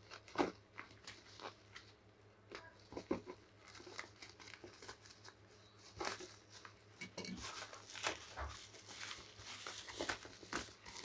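Plastic mailer and bubble-wrap packaging crinkling and rustling as hands pull it open, with irregular sharp crackles throughout.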